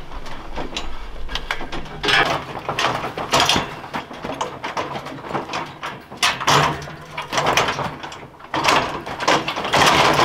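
Can of expanding spray foam hissing in short bursts as gaps in the sheathing are filled, with scattered clicks and rattles from the steel scaffolding. Near the end the rolling scaffold is pushed along on its casters.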